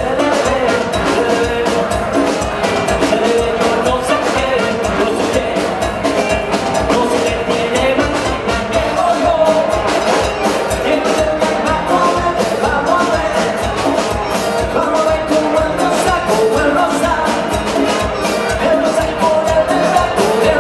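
Live salsa-style band playing with a steady driving beat: congas, timbales, electric bass and trombone.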